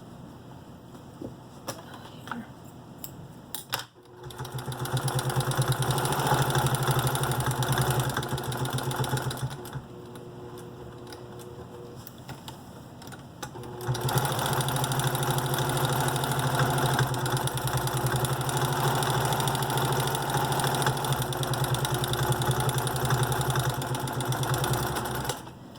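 Electric sewing machine stitching a seam in two runs: one of about five seconds, a pause with a few light clicks as the fabric is turned, then a longer, steady run of about eleven seconds. It is sewing a second reinforcing seam a quarter inch in, so the rice cannot escape if the first seam fails.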